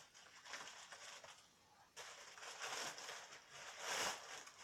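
Paper rustling and crinkling in uneven bursts as a present is unwrapped, loudest near the end.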